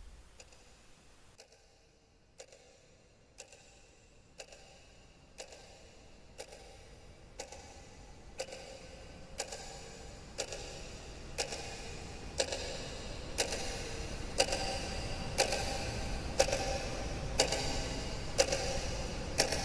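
Clock ticking, one tick a second, starting about two seconds in and growing steadily louder over a low rumble that rises with it.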